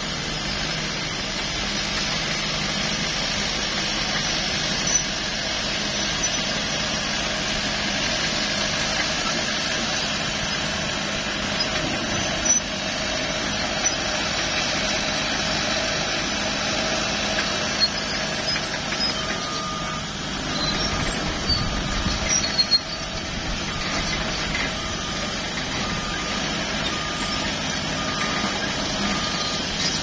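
Diesel engines of a Cat crawler bulldozer and a road roller running steadily at work, with a few sharp knocks. About two-thirds of the way through, a reversing alarm starts beeping at a regular pace.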